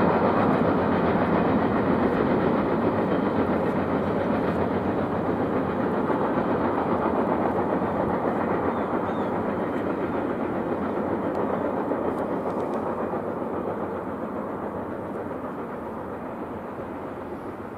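Empty coke cars of a freight train rolling away on the rails, their wheel and rail noise fading steadily as the end of the train recedes.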